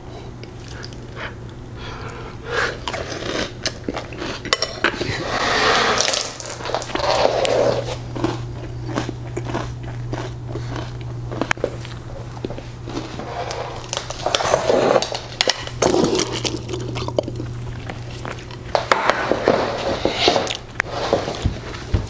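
A person chewing a mouthful of crunchy marshmallow cereal with milk, with repeated crunching bites over a steady low hum.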